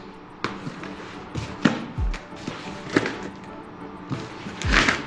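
Background music with a steady beat: sharp percussive hits and a deep falling bass hit about every two and a half seconds.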